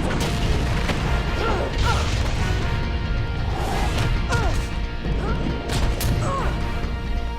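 Cartoon fight sound effects: a string of crashing impacts and hits over a background music score, with short cries of effort in between.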